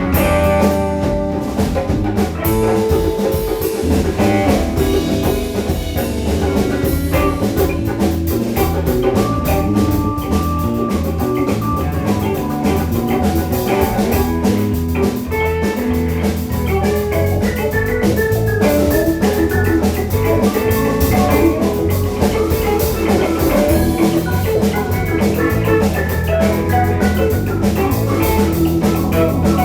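Live rock band playing an instrumental passage: electric guitar lines over a steady drum-kit beat and bass.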